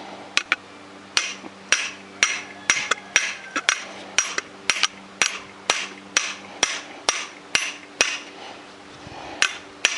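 Hammer blows on a metal drift, knocking worn bearings out of a walk-behind tractor's fan housing. The sharp, ringing metal strikes come about two a second, with a short pause near the end.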